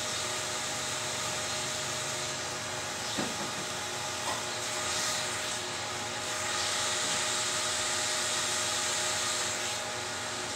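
Steady background whir and hiss with a faint hum, growing a little louder from about six and a half seconds to nearly ten seconds in; two light clicks, about three and four seconds in.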